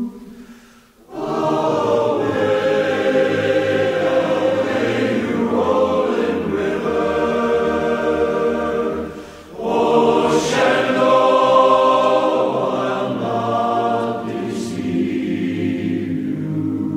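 Background music of a choir singing, broken by a short pause about a second in and another around nine seconds in.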